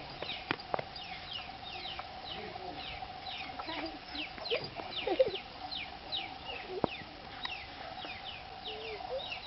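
Chickens peeping: a steady stream of short, high, falling calls, several a second, with a few lower calls and a steady hum.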